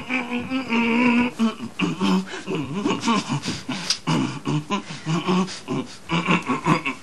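Pop song playing for dancing: a singing voice over a percussive beat.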